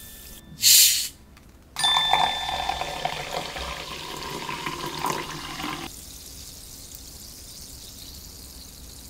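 Sparkling water being poured into a glass: a short loud hiss about half a second in, then a brief ding, then about four seconds of pouring and splashing, followed by a quieter steady fizz of bubbles.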